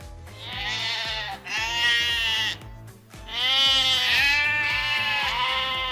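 Sheep bleating: about four wavering calls one after another, the last two longer, over quiet background music.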